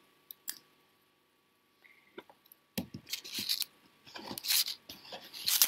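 Hands handling thin threads and rustling over a cloth-covered work board: a couple of faint clicks first, then irregular rustling and scraping from about three seconds in.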